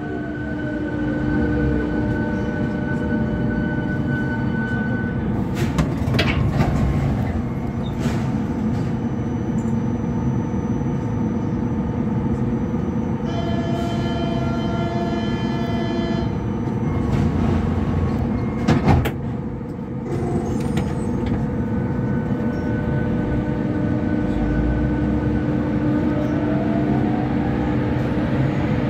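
Lille VAL rubber-tyred automatic metro train running through a tunnel, heard from inside: a steady rolling rumble with whining tones over it. A few sharp clicks come from the track along the way, and the pitch rises over the last few seconds.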